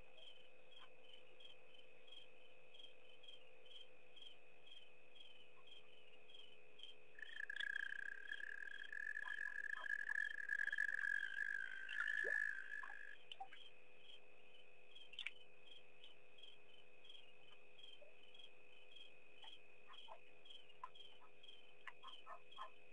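Insect chorus: crickets chirping at about two chirps a second over a steady high trill. From about seven seconds in, a louder, steady buzzing call joins for about six seconds and then stops.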